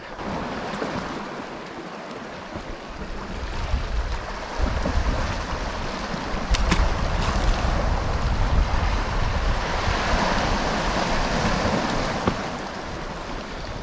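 Sea waves washing against rocks, with wind buffeting the microphone from about four and a half seconds in and a single short click a couple of seconds later.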